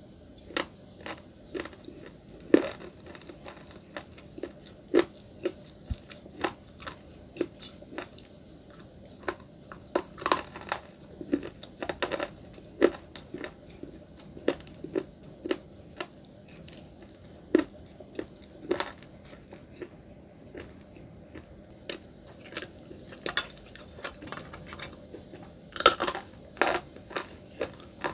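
Hard chunks of grey-white clay stone (battergray nakumat) being bitten and chewed: irregular sharp crunches, about one to two a second, the loudest near the start and near the end.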